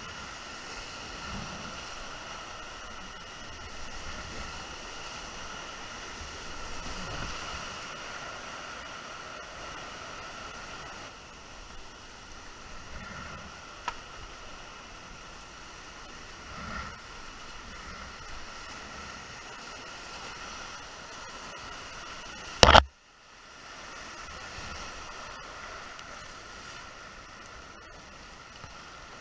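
Steady rushing of a flooded, muddy creek heard from a whitewater canoe running down it, with a few dull low thumps from the paddling. A single loud sharp knock comes about two-thirds of the way through.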